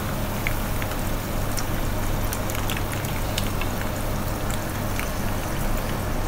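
Oil sizzling steadily around stuffed eggs frying in a shallow pan, with many small scattered pops and crackles.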